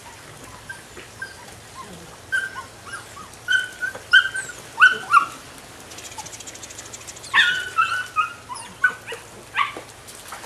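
Belgian Malinois puppy whining and yelping in a string of short, high-pitched calls, some falling in pitch, loudest around the middle and again about three-quarters of the way through.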